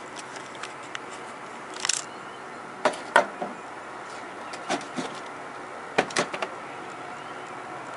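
Handling noise: scattered light clicks and knocks, with several sharper knocks in the middle, over a steady background hiss.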